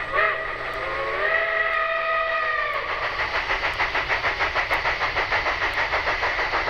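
Steam locomotive whistle: a short blast that dips in pitch, then a longer, steady blast of about two seconds. The locomotive's chuffing then starts and runs on as an even beat of about four puffs a second.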